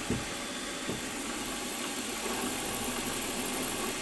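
Milling machine spindle running steadily with a small centre drill in the chuck, as the drill is brought down to spot a hole in the steel block. There are two light knocks in the first second.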